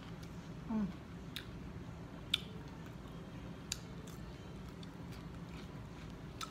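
Close-up eating sounds of a person biting and chewing raw cucumber slices: a few sharp, crisp clicks of bites and mouth noises. There is a brief falling "mm" about a second in, over a steady low hum.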